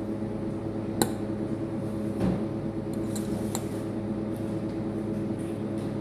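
A fork clicking and scraping on a plate as noodles are picked up and eaten, with a few sharp clinks, the loudest about a second in. A steady low hum runs underneath.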